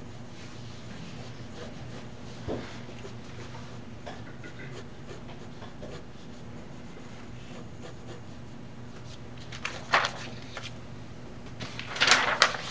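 Pencil sketching on paper, faint scratchy strokes over a steady low hum. About ten seconds in there is a brief rustle, and near the end a louder rustling of paper as the drawing sheet is lifted off the animation pegs and changed.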